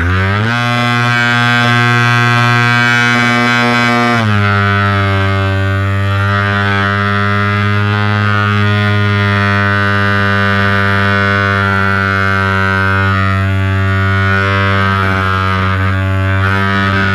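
RC airplane's 13x10 propeller and motor heard from the onboard camera, flying with a 2 kg payload: a steady, loud drone with many overtones. It rises in pitch as the throttle comes up at the start, steps down a little about four seconds in, then holds steady.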